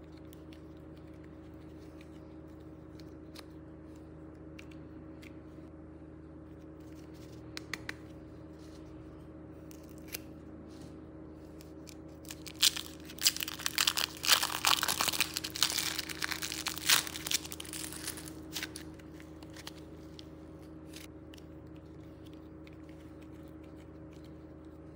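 Thin plastic piping bag crinkling and tearing as hands peel it off the clay inside, a dense run of crackles lasting several seconds in the middle. A steady low hum lies underneath, with a few faint taps and clicks before the crackling.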